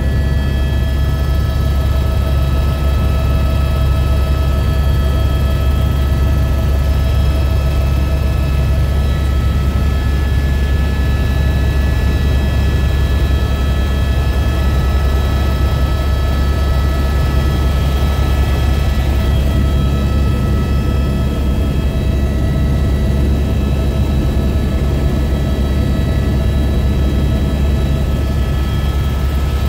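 Helicopter in flight heard from inside the cabin: a loud, steady low drone of rotor and engine, with a steady high whine laid over it.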